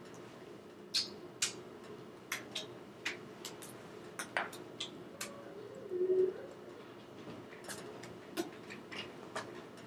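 Irregular small clicks and smacks, of lips and hands from a person signing, over a steady faint low hum, with a brief low hum about six seconds in that is the loudest moment.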